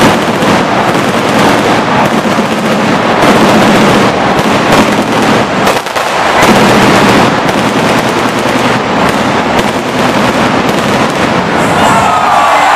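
Arena stage pyrotechnics going off in a loud, rapid, continuous crackling barrage, with a brief lull about six seconds in.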